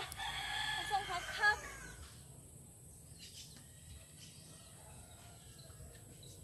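A rooster crowing once, a single call of about two seconds with a sharp start, followed by faint outdoor background.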